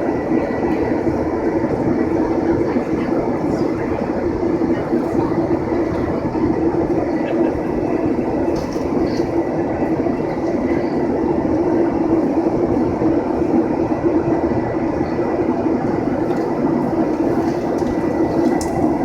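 Steady cabin drone of a Boeing 737-900ER in flight: engine and airflow noise heard from inside the cabin, with a faint high steady whine.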